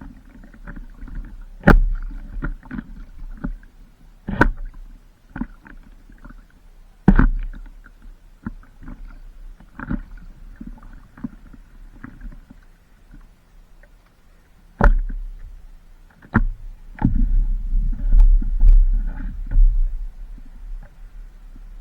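Stand-up paddleboard paddle strokes: a sharp splash or knock of the blade in the water about every two to three seconds, over a low rumble of wind on the microphone.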